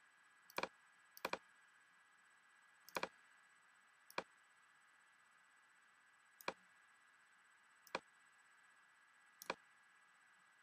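Computer mouse clicking: about seven short, sharp clicks spaced irregularly, a second or two apart, some of them doubled, over a faint steady room hiss.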